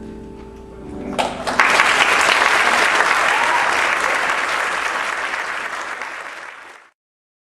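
The choir's last held chord fading, then an audience breaking into loud applause about a second in, which cuts off suddenly near the end.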